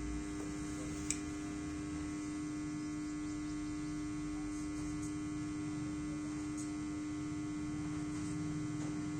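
Steady electrical hum at one even pitch, with a single sharp click about a second in.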